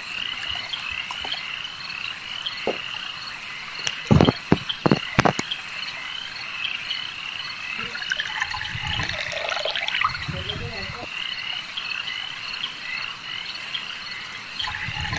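Frogs croaking in a steady, evenly pulsing chorus, with a few sharp glass-like clinks about four to five seconds in and liquid being poured near the middle, as a drink of liquor is mixed.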